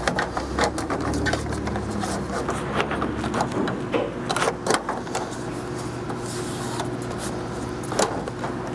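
Clicks and clanks of metal parts being handled as a commercial dryer's coin mechanism is pulled out and fitted back into its panel, over a steady low mechanical hum.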